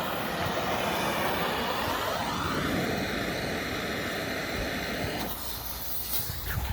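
Steady hiss of a firework fuse being lit and burning, cutting off suddenly about five seconds in.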